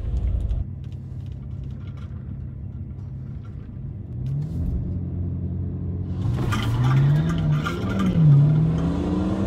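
A 2009 BMW 335i's twin-turbo inline-six, heard from inside the car. It idles, is brought up in revs about four seconds in, then pulls hard from a drag-strip launch at about six seconds. The engine pitch climbs, dips briefly near eight seconds and climbs again.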